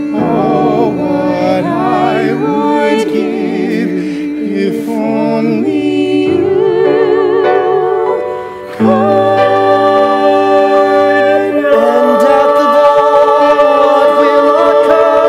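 A musical-theatre vocal quartet singing in harmony, holding long notes with vibrato over sustained accompaniment. It dips briefly, then swells into a new held chord about nine seconds in.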